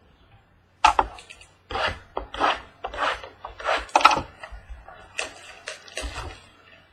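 Cardboard trading-card box being opened and handled: a run of short scraping and rustling bursts as the box is worked open and its mini boxes are pulled out.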